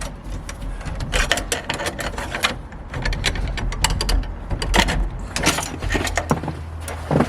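A FirePik entry tool being wriggled behind the latch of a rusty steel door, the metal scraping and clicking against the latch and frame in many quick irregular clicks and rattles, over a steady low hum.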